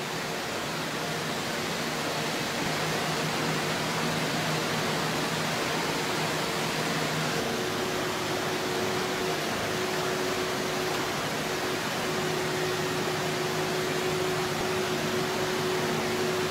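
Steady rushing of water pouring down a rock face, with the faint steady drone of a walking excavator's engine under it.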